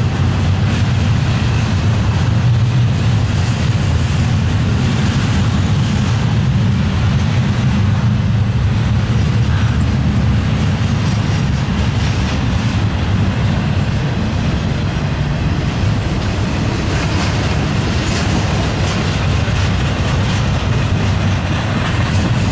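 Double-stack intermodal freight train rolling past: a steady, loud rumble of well cars and their wheels on the rails.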